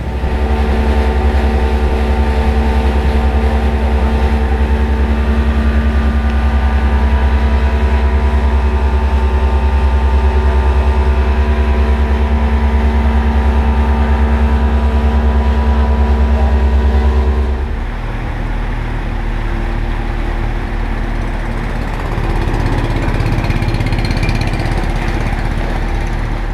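An engine running steadily at a constant speed, then dropping to a lower speed about 18 seconds in and picking up a little again around 22 seconds.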